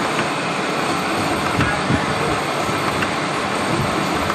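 A machine tool running steadily, a dense even mechanical noise with a few faint clicks through it.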